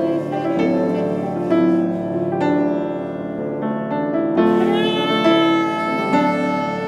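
Saxophone and acoustic piano playing a melancholic instrumental duet: piano notes and chords fading under the saxophone line, with a long held saxophone note coming in about four and a half seconds in.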